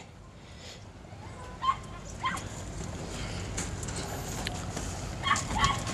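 A few short animal yelps, about two seconds in and again near the end, over steady faint outdoor background noise.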